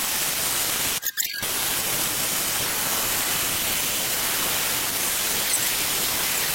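Aerosol can of wheel cleaner spraying in a long, steady hiss, with a short break about a second in.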